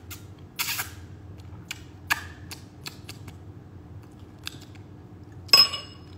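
Soup being slurped from a spoon in short, noisy sips, with small clicks of a metal spoon against a ceramic bowl in between. The loudest sound comes near the end and rings briefly.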